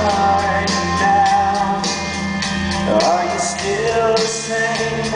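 Pop song played over an arena PA with a male lead vocal holding and sliding between long notes over backing music with a steady beat.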